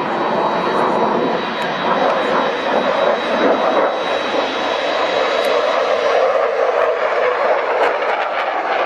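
Polish Air Force MiG-29's twin RD-33 turbofan engines running loud and steady as the jet flies past.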